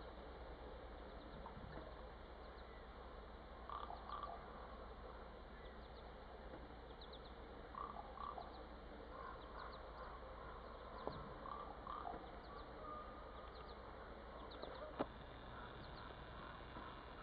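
Faint frog croaking near a pond: short calls in scattered clusters. Thin high bird chirps sound throughout, and two sharp clicks come through, one mid-way and one near the end.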